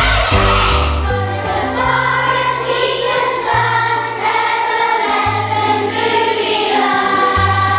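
A children's choir singing a song together over an instrumental accompaniment with long held bass notes.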